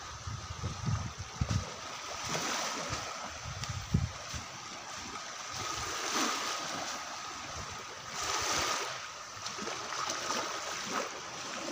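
Small sea waves washing on the shore, a steady hiss that swells and fades, loudest a little past the middle. Low thumps on the microphone in the first few seconds.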